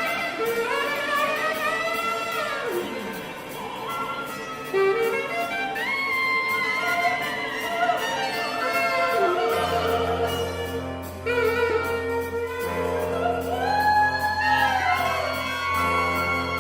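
Mixed chamber ensemble of winds, brass and strings playing contemporary concert music: overlapping held notes and sliding pitches, joined about ten seconds in by a low sustained chord underneath.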